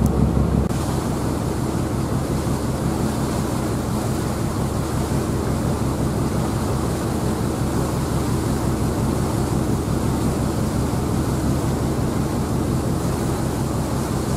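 Ferry engine running with a steady low drone under a rush of wind and water. The sound drops and changes about a second in, then stays even.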